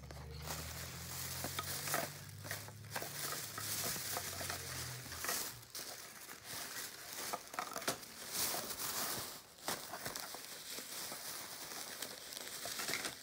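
Thin plastic shopping bags rustling and crinkling as they are handled and rummaged through, in a dense run of small crackles. A low steady hum underlies the first five seconds or so, then stops.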